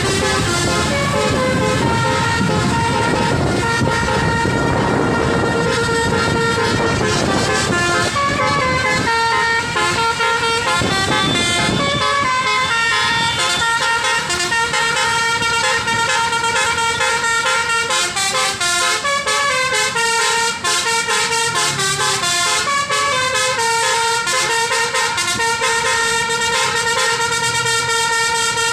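Basuri multi-tone telolet bus horn with roof-mounted trumpets playing a fast remixed melody of rapidly changing notes. A low rumble runs underneath for roughly the first ten seconds.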